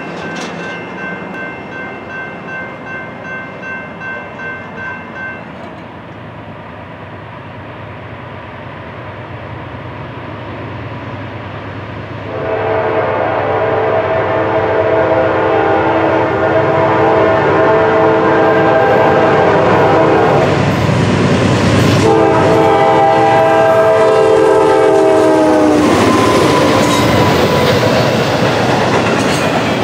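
Norfolk Southern GE Dash 9-40CW diesel locomotive blowing its horn as it approaches: one long blast of about eight seconds, a short break, then a second blast of about four seconds. Near the end the locomotive and the double-stacked intermodal well cars rumble and clatter past at close range.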